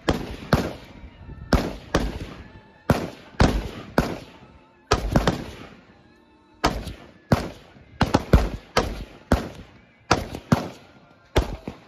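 Gunfire at a shooting range: about twenty sharp shots at uneven spacing, some in quick pairs, each trailing off in an echo.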